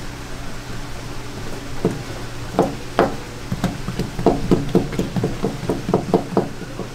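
Kitchen knife chopping on a cutting board as fish is cut for sashimi: a few separate strokes, then a quick even run of about four to five chops a second.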